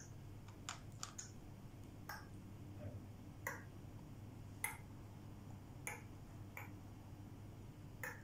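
About ten faint, sharp clicks and taps at irregular intervals as small watercolour paint tubes are handled, tapped against the lemons and plate, and set down on the tabletop.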